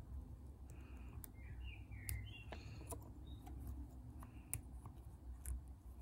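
Faint, scattered metallic ticks and light scrapes of a hook pick probing the pin stacks of a lock under tension, with a few short squeaky chirps in the first half. The picker is feeling for binding pins.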